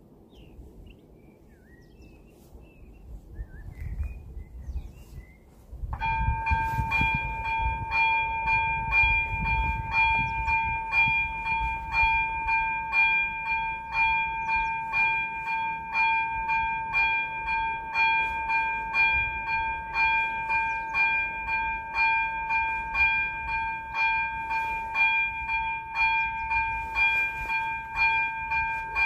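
Electronic warning bell of a Czech railway level crossing. It starts about six seconds in and rings steadily at about two strokes a second, warning that a train is approaching.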